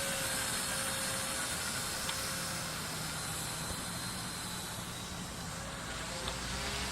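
Blade mCPx micro RC helicopter in flight: its small electric motors and rotors whining in a thin, steady tone over a hiss, with wind rumbling on the microphone.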